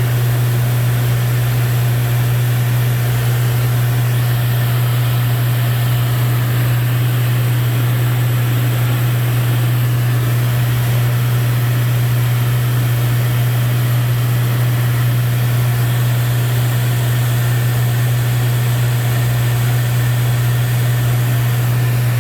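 Steady drone of a Lancair 4P's engine and propeller heard inside the cockpit in flight, a strong low hum under a constant rush of air noise, unchanging throughout.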